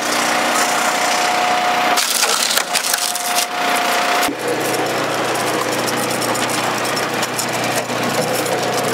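Oak round being forced through the box wedge of a commercial log splitter, the wood cracking and splintering over the splitter's steady running noise. About four seconds in, the splitting becomes a dense, continuous crackle.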